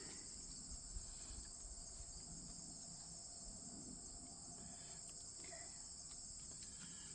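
Steady, high-pitched chorus of insects trilling without a break, with a faint click about a second in.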